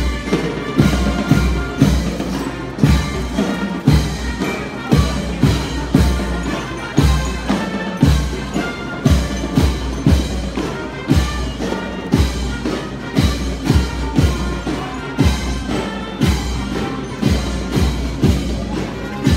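Marching band playing a march: brass over a steady bass drum beat about once a second.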